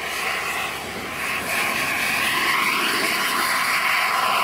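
Turbine-powered RC scale model Hughes 500 helicopter flying past: a high turbine whine with rotor noise, getting louder about a second and a half in. Its pitch dips and rises again as it passes.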